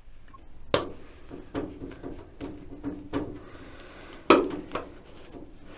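Thin 20-gauge sheet-steel patch piece handled and offered up against a car body panel: a series of light metallic clinks and taps, the loudest about four seconds in.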